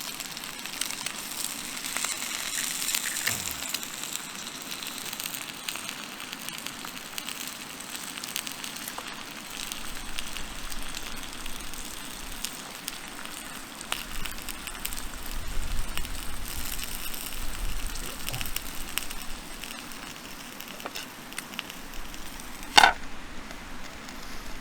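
Campfire cooking: steady crackling and sizzling with many small pops. There is one sudden loud sound near the end.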